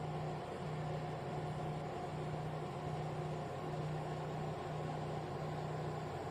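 Ceramic tower fan heater running: a steady rush of air from its fan, with a low hum that breaks off briefly about once a second.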